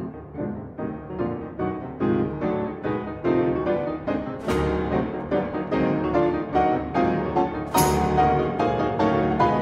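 Piano music: a quick, steady run of notes that grows louder, with a bright crash about halfway through and another near the end.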